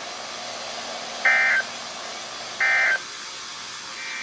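Emergency Alert System end-of-message signal: three short digital SAME data bursts about 1.4 s apart, the last one fainter, over a steady hiss from the weather radio. It marks the close of the severe thunderstorm warning broadcast.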